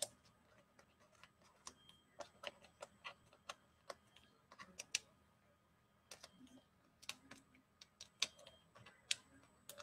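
Faint, irregular clicks and ticks, a couple a second, of hands peeling very sticky foam adhesive dimensionals off their backing sheet and pressing them onto card stock.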